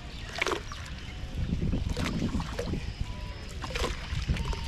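Water splashing and dripping as a wet fishing net is hauled by hand out of a lake into a canoe, in irregular short splashes.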